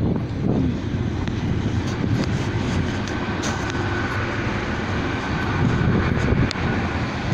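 Train passing close by: a steady rumble of wheels on the rails, with a few sharp clicks and a faint steady whine partway through.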